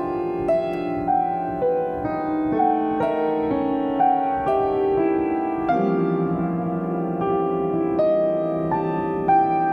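Yamaha upright piano played in a slow, even line: single notes about twice a second over sustained lower notes.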